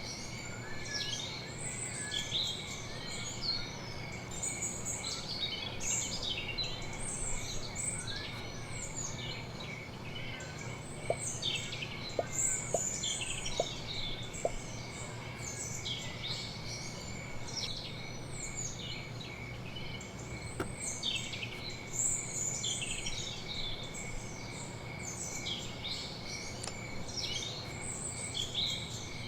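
Many small birds chirping in a continuous, busy chatter of short high calls. A faint steady high tone and a low hum run underneath.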